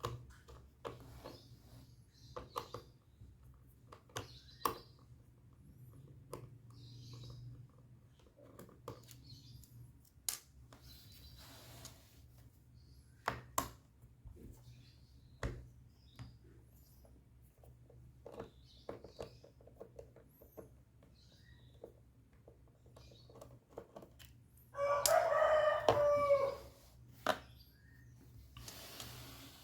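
Scattered light clicks and taps of laptop parts being handled. About 25 seconds in, a loud bird call lasts about a second and a half.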